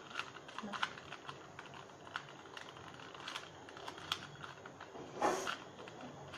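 A plastic 2x2 Rubik's cube being turned fast during a speed-solve: a quick, irregular run of small clicks as the layers snap round, with one longer, louder rasping turn about five seconds in.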